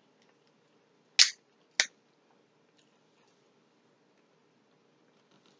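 Crab leg shell snapped apart by hand, two sharp cracks about half a second apart, the first a little longer, with faint clicks of shell pieces around them.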